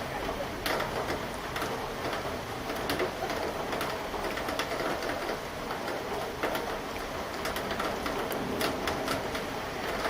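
Steady rain falling during a summer thunderstorm, with individual drops tapping irregularly and sharply on a hard surface.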